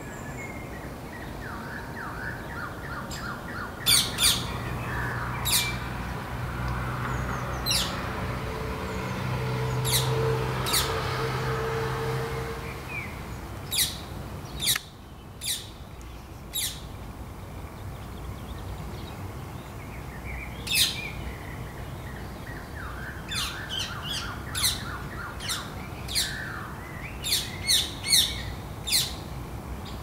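Rose-ringed parakeet giving about twenty short, shrill calls, singly and in quick runs, with a cluster near the end, between quieter runs of chatter. A low steady hum swells and fades in the background during the first half.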